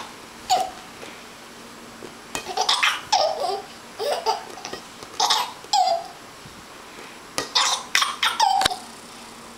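Six-month-old baby laughing in about five short bouts of giggles, with quiet gaps between them.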